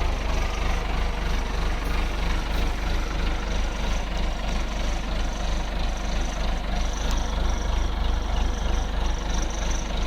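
James 52 C-4 backhoe's four-cylinder 3.9-litre naturally aspirated Perkins diesel idling steadily, with an even pulsing beat.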